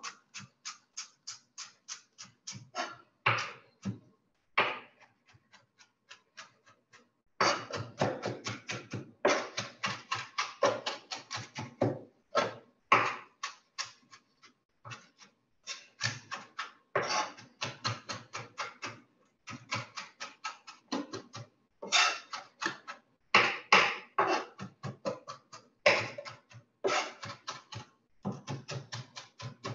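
Knife rapidly chopping fresh parsley on a cutting board, mincing it fine: quick, even taps of the blade, about five a second, in runs broken by short pauses.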